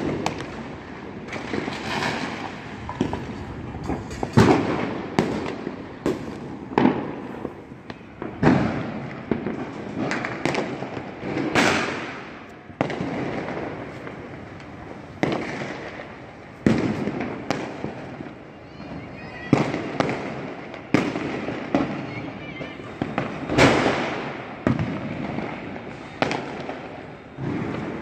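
Firecrackers going off: irregular loud bangs, one every second or two, each trailing off, over a continuous background of more distant crackling.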